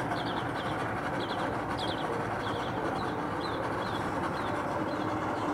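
Twin V250 outboard motors running at low speed with a steady rumble as the boat moves off from the dock, while small birds chirp in quick repeated notes that thin out near the end.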